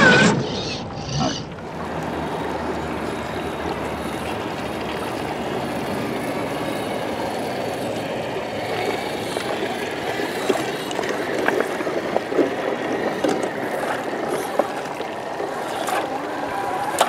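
Shallow stream running over rocks: a steady rush of water, with a few small clicks.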